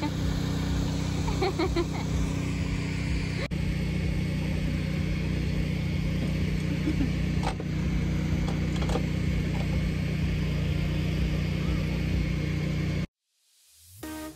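A motor vehicle engine running steadily, with an even low hum. It cuts off abruptly about a second before the end, and electronic music fades in.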